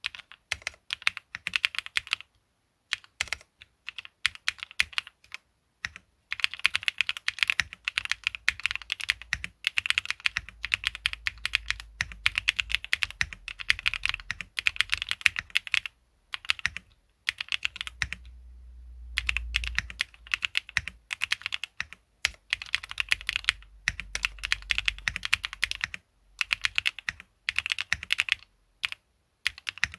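Typing on a KBD8X MKIII custom mechanical keyboard built with Qsenn Apple Mint switches, a polycarbonate half plate, cherry-profile PBT keycaps, top mount and no foam: fast runs of key clacks broken by a few short pauses.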